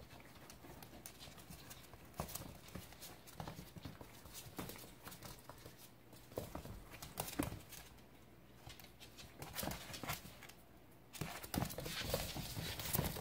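Two Jack Russell puppies scuffling and scampering on a wooden floor, their claws and paws clicking and tapping in irregular bursts. The tapping turns into a dense, louder patter near the end as they run off.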